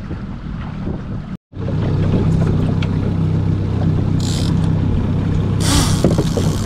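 Outboard motor running steadily under a trolling boat, with wind on the microphone; the sound cuts out for a moment a little over a second in. Later come two short high-pitched buzzing bursts, a salmon reel's drag paying out line as a fish strikes.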